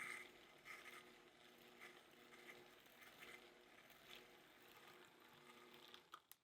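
Faint soft taps and short scrapes of a utensil in a bowl, irregular and quiet, as cream cheese cream is mixed by hand.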